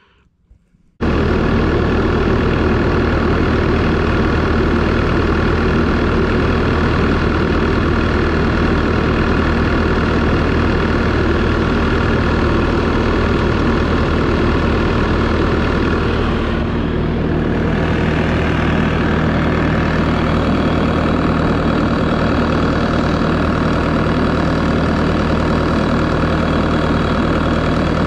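Bobcat S570 skid steer's diesel engine running steadily, heard up close. It cuts in suddenly about a second in, shifts slightly in tone partway through, and cuts off suddenly at the end.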